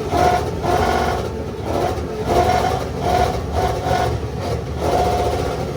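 Lexus LS engine revved hard again and again in a two-step contest, in repeated pulses roughly every half second to second.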